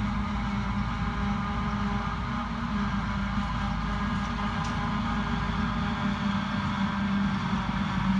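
Claas self-propelled forage harvester chopping a grass swath for silage, its engine and chopping gear running steadily with a tractor working alongside. The machines make a constant drone with a steady low hum.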